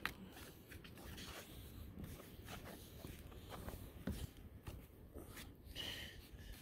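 Faint scattered knocks and rubbing: footsteps on wooden deck boards and a cotton work glove brushing along a wooden deck railing.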